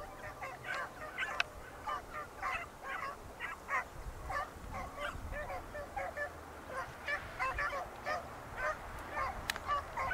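A pack of beagles baying as they run a rabbit's scent trail, with many short calls overlapping without a break.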